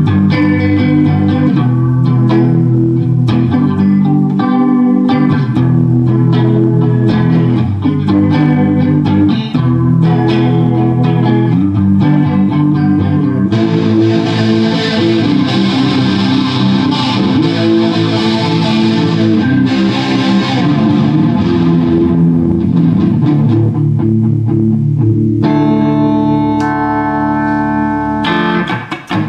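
Music led by guitar, with a brighter, hissier layer joining for several seconds in the middle and the part changing a few seconds before the end.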